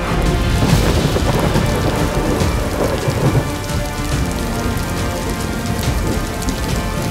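Storm sound effect: steady heavy rain with thunder rumbling and cracking through the first few seconds, then easing to rain alone.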